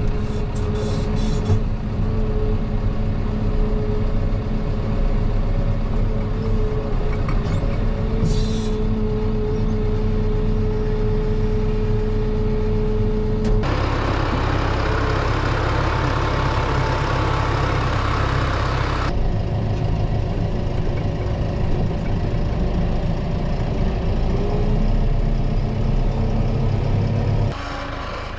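Engine of a snow-clearing machine running steadily under load. Its sound changes abruptly a few times, turning noisier for several seconds about halfway through.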